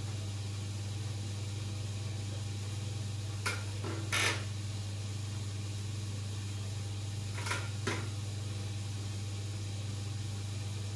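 Aquarium pump or filter running with a steady low hum and a hiss. Two pairs of brief noises come about three and a half seconds in and about seven and a half seconds in.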